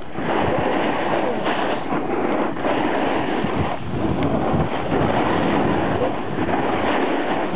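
Steady rushing noise of a downhill run on hard man-made snow: wind over the handheld microphone and the scrape of edges sliding on the snow.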